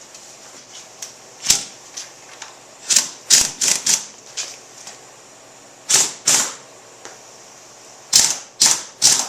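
Hand ratchet wrench worked in short back-and-forth strokes, each stroke a quick burst of clicking, in clusters of two to five, while a front-end fastener on a motorcycle is snugged down before final torquing.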